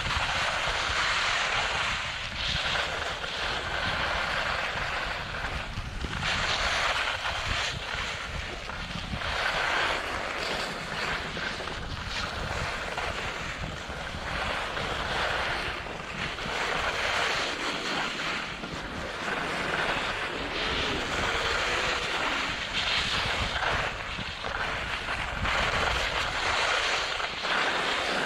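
Skis hissing and scraping over packed snow, swelling and fading every few seconds with the turns, over wind rumbling on the microphone.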